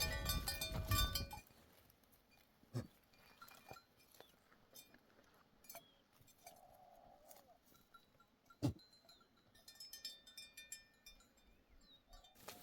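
Flock of sheep and goats bleating, with animal bells clinking. Loud for the first second and a half, then faint, with two sharp knocks and a short bleat in the quiet stretch.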